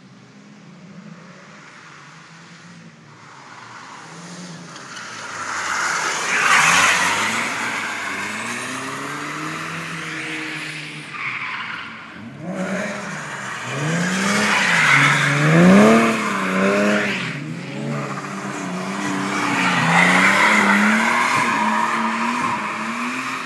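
Three drift cars, Nissan 240SXs and a Lexus IS300 with a mix of engines, slide past one after another on wet pavement, engines revving up and down and tyres squealing. They come in about five seconds in, with loud passes around a quarter of the way, two-thirds of the way and near the end.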